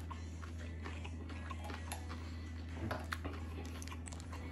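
A person chewing a mouthful of shrimp ceviche on a crisp tostada, with faint scattered crunches and mouth clicks over a steady low hum.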